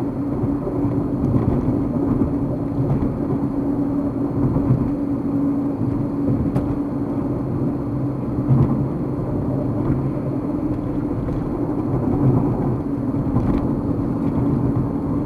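A steady mechanical drone with a constant hum and a few faint ticks.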